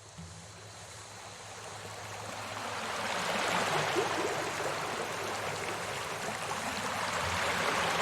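Water running and bubbling in a fish tank, fading in over the first few seconds, with a faint steady low hum beneath it.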